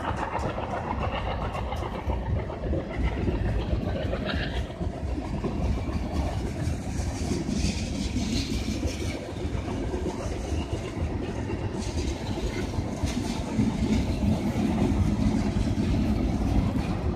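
A freight train's covered hopper cars rolling past: a steady rumble of steel wheels on rail, with scattered clicks.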